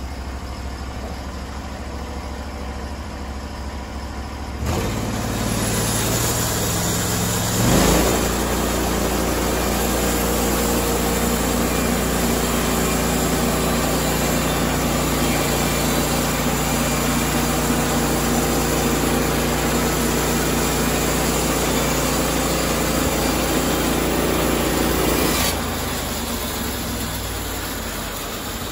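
Norwood HD36 portable bandsaw mill: the engine runs steadily at a low speed, then throttles up about five seconds in. A brief louder jolt follows as the band blade goes into the wood, and then a long, even run of engine and blade as the head is pushed through the cut. Near the end the engine drops back to its lower speed.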